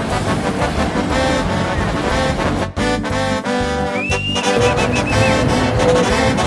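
Background music with brass instruments, swing-style, pausing briefly about two and a half seconds in.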